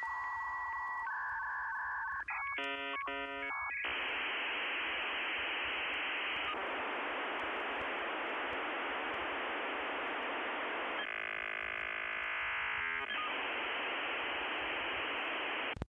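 Telephone-line sounds: steady tones, then a quick burst of touch-tone dialing about three seconds in, then a long steady hiss with a brief warbling stretch near the end, cut off abruptly. The sequence is typical of a dial-up modem connecting.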